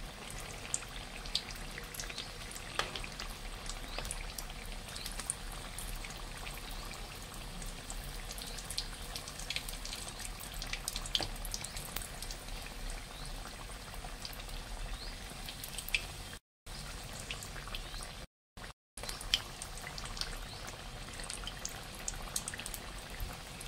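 Keema spring rolls frying in hot oil, well browned and nearly done: a steady sizzle with scattered pops and crackles. The sound drops out to silence briefly twice about two-thirds of the way through.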